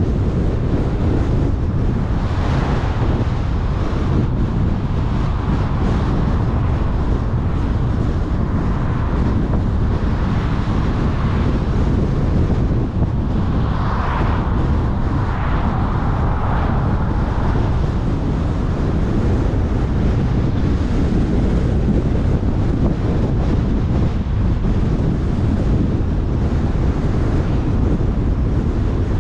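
Steady low wind rumble on a car-mounted microphone together with the car's road noise while driving. A passing car's whoosh swells and fades about halfway through.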